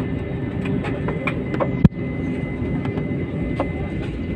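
Steady hum of an Airbus A321ceo's jet engines at taxi power, heard from inside the cabin. Faint scattered ticks, and one sharp knock about two seconds in.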